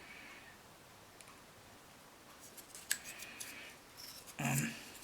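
Small plastic model-kit parts being handled and fitted together: faint scrapes and light clicks, with one sharp click about three seconds in and a brief louder sound near the end.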